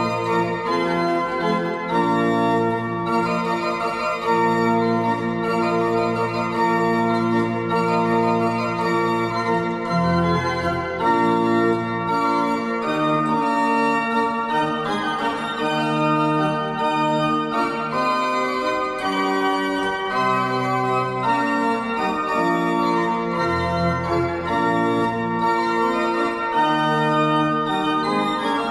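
Reichel pipe organ, a 17th-century baroque instrument, playing a lively chorale setting. Held bass notes change slowly under busy moving upper lines, sounding in a large reverberant church.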